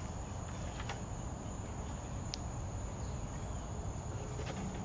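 Steady high-pitched chirring of an insect chorus, most likely crickets, over a low outdoor rumble. A faint click comes a little over two seconds in.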